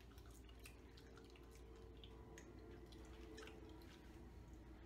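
Near silence: faint scattered small clicks and wet mouth sounds of jelly beans being chewed, over a low steady room hum.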